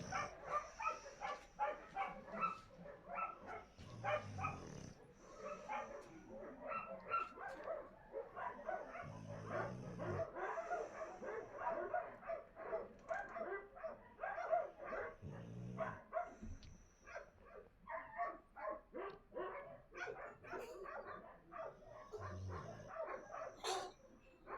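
Shelter dogs barking and yipping in quick, overlapping barks, with a sleeping dog snoring underneath: a low rumble of about a second that comes back every five to six seconds.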